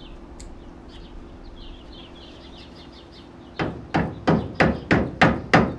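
Hammer blows in a steady rapid series, about three a second, starting about three and a half seconds in, tapping an oiled rubber leaf-spring bushing into the spring eye of a golf cart. Before the hammering, birds chirp faintly.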